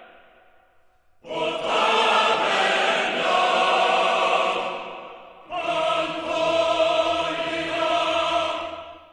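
Choir-like music: long held sung chords that swell up and fade away twice, after a second of near silence.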